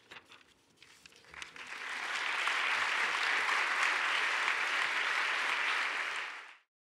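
Audience applause: a few scattered claps, then a full round of clapping that swells about a second and a half in, holds steady, and cuts off abruptly near the end.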